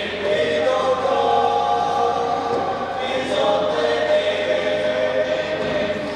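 A small male choir singing together, several voices holding long sustained notes.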